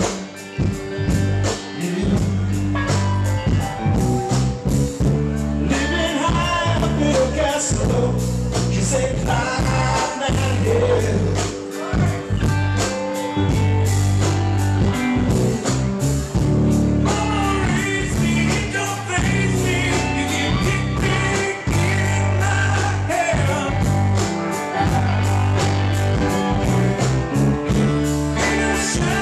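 Live rock band playing with a steady drum beat, electric and acoustic guitars, and a man singing.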